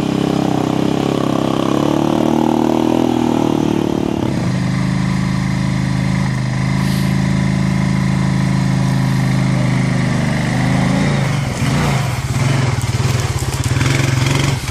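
Honda TRX500 ATV's single-cylinder engine running under load. Its note rises and falls for the first few seconds, then holds steady at low revs while pulling a loaded log trailer. Near the end there is a brief dip and then a rattling clatter over the engine.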